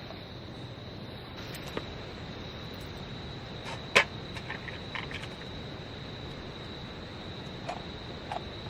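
Insects, likely autumn crickets, trilling steadily on one high pitch, with a few sharp clicks or snaps over it, the loudest about four seconds in.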